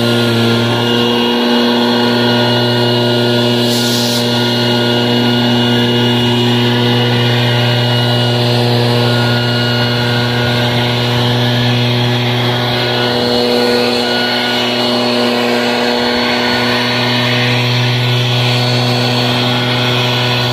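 Echo leaf blower running steadily, a constant engine drone with rushing air, easing briefly about a second and a half in and again near the three-quarter mark.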